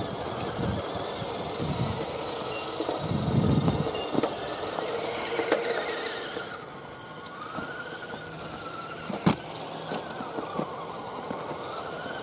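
Axial SCX10 RC crawler driving over a dirt trail: its tyres crunch over loose soil, and its electric motor and gears whine, rising and falling in pitch in the second half. One sharp click about nine seconds in.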